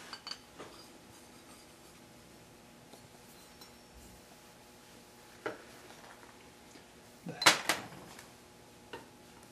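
Metal tools and dies clinking and knocking on a workbench as they are handled: scattered clicks, with a louder cluster of clatters about seven and a half seconds in, over a faint steady hum.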